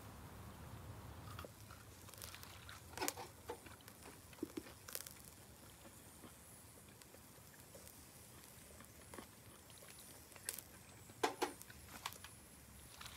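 Chicken gizzard skewers grilling over charcoal in a shichirin: scattered sharp crackles and pops from the grill, bunched in two clusters near the start and near the end, over a low steady rumble.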